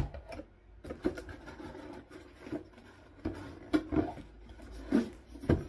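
A plastic knitting machine set down on a tabletop with a sharp knock, followed by scattered light knocks and rustling as a cardboard box is handled.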